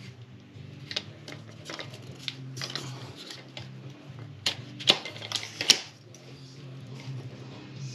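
Irregular clicks and taps of a 9mm suppressor being handled, with two sharper knocks about five seconds in, over a steady low hum.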